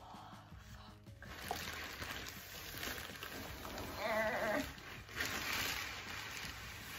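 Polystyrene beanbag beads pouring and rustling as a plastic bag of them is crinkled and tipped into a beanbag cover. About four seconds in, a brief wavering vocal whine rises over the rustling.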